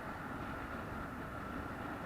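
Steady rumble of a vehicle on the move, with a faint steady whine above it.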